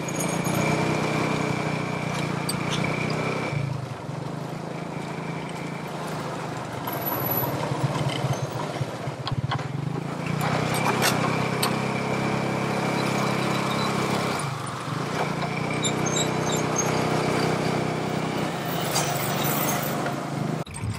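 A motor vehicle's engine running steadily, its note shifting a few times, with a thin high whine that comes and goes.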